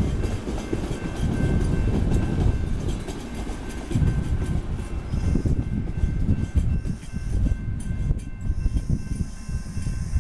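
Intercity passenger coaches rolling past on the rails: a steady low rumble of wheels and bogies, with a faint, steady high tone held over it.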